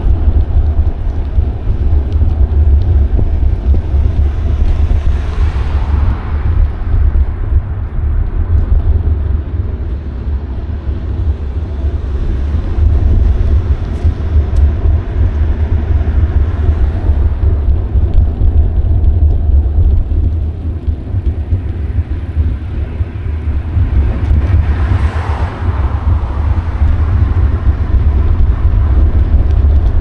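Heavy wind rumble on an action camera's microphone while riding a bicycle, mixed with tyre and road noise. Two louder swells of hiss come and go, about five seconds in and again about twenty-five seconds in.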